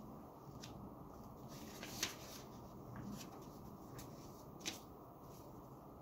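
Faint handling sounds in a quiet room: scattered soft clicks and rustling, with two sharper clicks, one about two seconds in and one a few seconds later.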